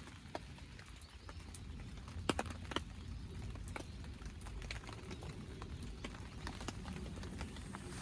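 Rain at a camp: irregular drops tapping sharply on a nylon tarp over a steady low patter.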